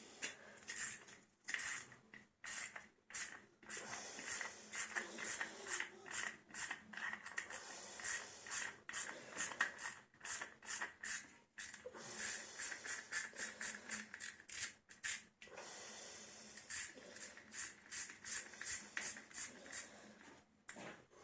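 Rapid, irregular scraping and rustling strokes, several a second with short pauses, from hands working on the plastic and metal parts of a generator's pull-cord recoil starter.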